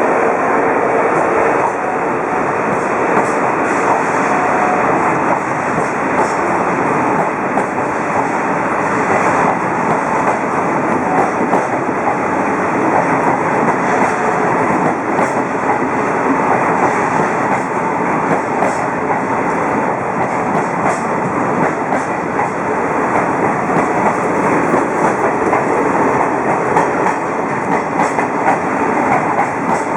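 A train running on rails: a steady loud rumble of wheels on track, with faint clicks over the rail joints.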